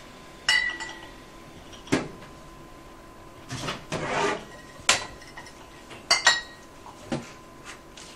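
Glass beer bottles clinking and knocking as they are handled: about half a dozen sharp clinks with a brief ring, and a longer scraping rustle midway.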